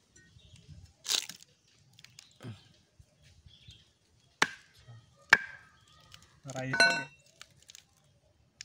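A knife blade prying open the hard husks of gayam (Tahitian chestnut) fruits: a rasping crack about a second in, then two sharp cracks about a second apart.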